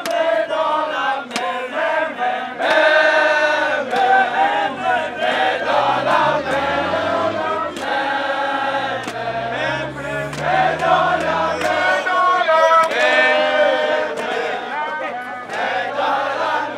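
A crowd of demonstrators singing together in chorus, many voices at once, continuous and loud.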